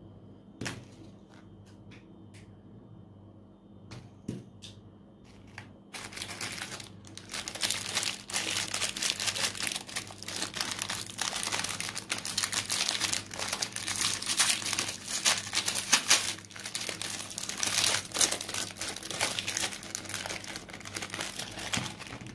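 A foil cookie wrapper being crinkled and pulled open by hand, with a dense, continuous crackle from about six seconds in. Before that there are only a few light clicks.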